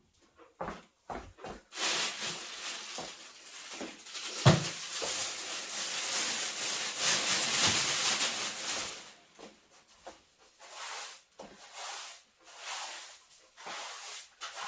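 Broom sweeping debris across a floor: a long stretch of steady brushing, with one sharp knock about four and a half seconds in, then several short separate strokes near the end.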